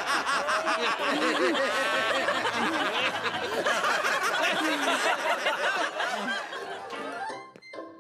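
Several voices laughing and snickering together. Near the end the laughter stops and a light musical cue begins.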